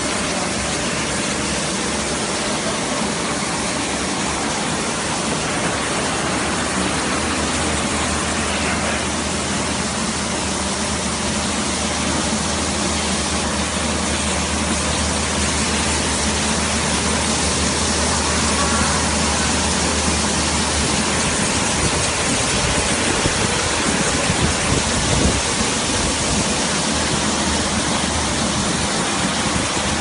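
Automatic carpet washing machine running: a steady rush of spraying water over a low motor hum that fades out about two-thirds of the way through.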